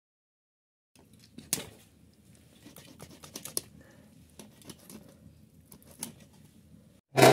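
Hands cleaning a raw rohu fish with a blade, trimming its fins and scraping its body: a run of small irregular clicks and scratches starting about a second in, with a louder knock near the end.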